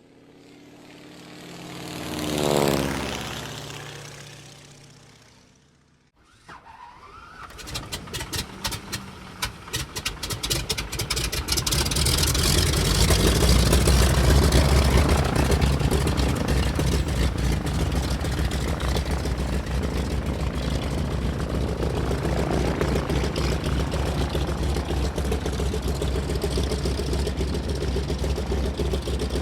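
An aircraft passing by, growing louder and then fading, its pitch dropping as it goes past. Then a piston aircraft engine is started: separate firing beats that catch and build into steady running after a few seconds.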